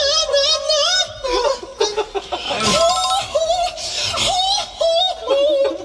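A young man making a silly high-pitched voice, squeaky wavering vocal sounds in short bursts, mixed with laughter.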